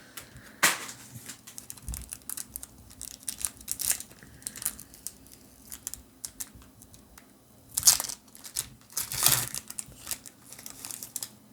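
Foil Pokémon booster pack wrapper crinkling and being torn open, with irregular crackles and rustles as it is handled; a few louder rips stand out, one near the start and two about two-thirds of the way in.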